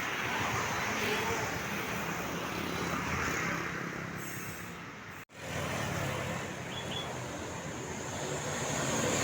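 Roadside traffic noise with a large vehicle's engine running. The sound cuts out abruptly for an instant about five seconds in, then an engine hum returns and grows louder near the end.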